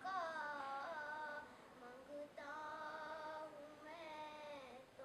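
A girl singing a naat alone in long, held notes that bend and waver in pitch. The phrases break about two seconds in and again near the end.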